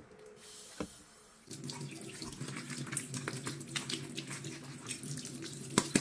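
Tap water running onto blanched pork ribs in a stainless steel colander, starting about a second and a half in, with small knocks and clicks as hands rub the ribs clean under the stream.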